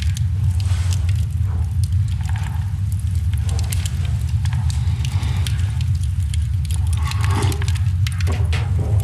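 A steady low rumble with many scattered sharp crackles and clicks over it.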